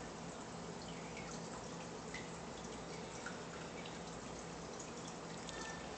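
Aquarium filter water trickling and dripping steadily, with many small ticks of falling drops over a faint low hum.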